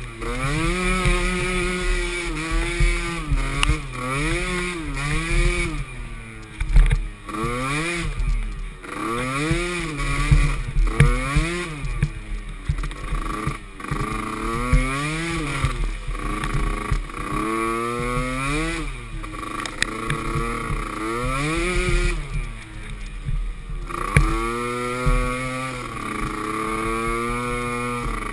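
Small youth ATV engines revving up and backing off over and over while racing, the pitch rising and falling about once a second, with more than one engine heard at times.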